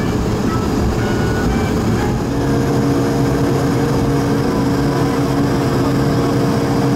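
Airbus A220-100 cabin noise while taxiing: a steady low rumble from the Pratt & Whitney PW1500G geared turbofans at taxi power and the rolling airframe. A steady hum joins about two seconds in.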